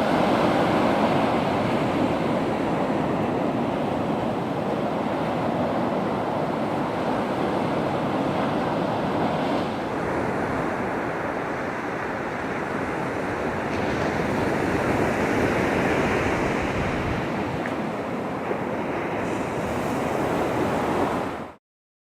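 Ocean surf washing on the beach, a steady rushing noise with wind on the microphone; it cuts off suddenly near the end.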